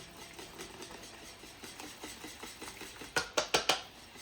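Pancake batter being stirred in a bowl, with a run of soft rapid ticks. About three seconds in come four quick, sharp knocks.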